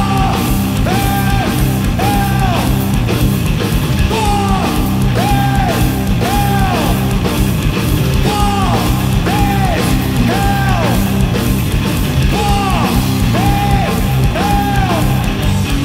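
Two-piece heavy rock band playing live: electric guitar repeating a riff of bent notes over drums and cymbals.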